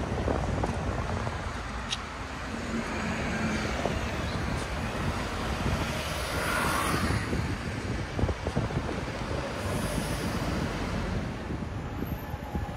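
Road traffic: cars and buses running past on a busy street, a steady rumble with one vehicle swelling past close by about halfway through.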